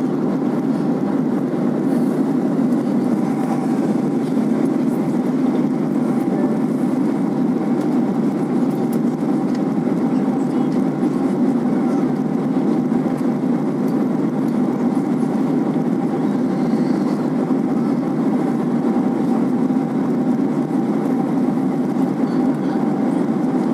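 Steady cabin noise of a jet airliner at cruise altitude: an even rush of engines and airflow, with a faint constant hum above it.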